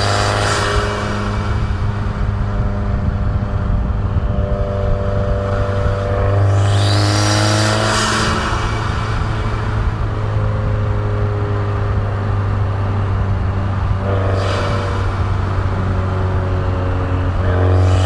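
Turbocharged Subaru WRX engine running under way. It gives a steady low drone, and the turbo's whistle rises in pitch twice as it spools up, about six and a half seconds in and again at about fourteen and a half seconds.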